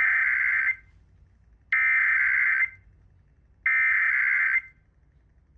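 Emergency Alert System SAME header bursts: three identical bursts of screeching digital data tones, each just under a second long and about a second apart, encoding a Required Monthly Test, relayed over FM radio.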